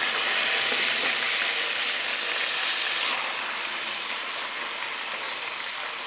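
Pork leg slice sizzling steadily in hot fat, the cooking water boiled off so the meat now fries. The sizzle eases a little about halfway through.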